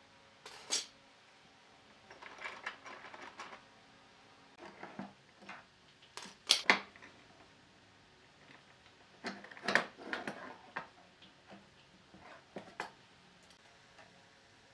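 Steel pipe clamps clanking and knocking as they are loosened and lifted off a glued-up solid-wood slab, in irregular metallic clatters with the loudest knocks around the middle.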